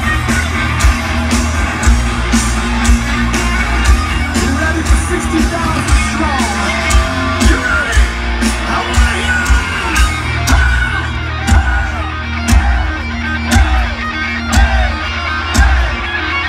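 Heavy metal band playing live through a large outdoor PA, heard from within the crowd: distorted electric guitars over a drum beat of about two hits a second, with a bending lead guitar line over the top.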